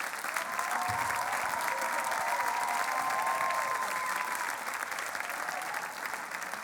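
Audience applauding and cheering after a performance, the applause thinning near the end.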